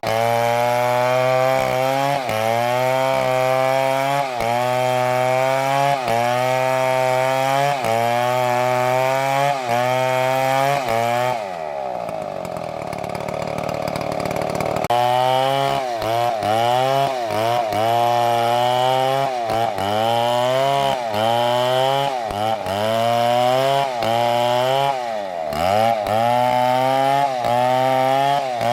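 Large two-stroke MS720 chainsaw running at full throttle in a cut through a big tree trunk, its pitch sagging under load about every second and a half. About halfway through it drops to idle for a few seconds, then revs back up and carries on cutting.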